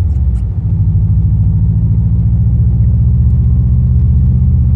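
Subaru boxer engine and exhaust running under way, a steady deep low drone with an even fine pulse, dipping briefly about half a second in.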